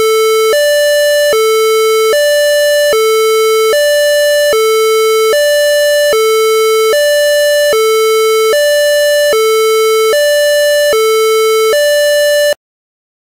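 Loud electronic two-tone siren alternating between a lower and a higher pitch, each held just under a second, in the hi-lo pattern of a German emergency-vehicle horn. It cuts off abruptly shortly before the end.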